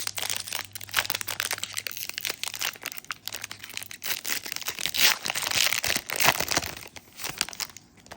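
Foil trading-card pack wrapper crinkling and tearing as it is ripped open by hand, loudest a little past halfway and stopping shortly before the end.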